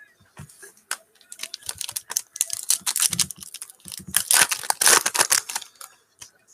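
Foil wrapper of a Panini Certified basketball card pack crinkling and tearing as it is ripped open by hand: a run of quick crackles that is busiest about four to five seconds in and stops shortly before the end.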